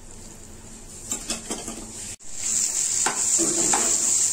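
Peas in masala sizzling in a frying pan while a slotted spatula stirs and scrapes the pan. The sizzle grows louder after a brief break about two seconds in, with several scraping strokes.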